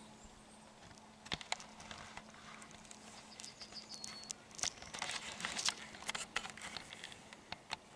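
Faint handling noise as a handheld camera is turned around: scattered soft clicks and rustles of fabric and foliage. A brief high whistle sounds near the middle.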